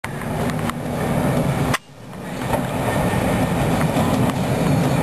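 Vintage Budapest L-type tram car running toward the listener, with a steady rumble of its running gear on the rails and a few sharp clicks. The sound cuts out briefly about two seconds in.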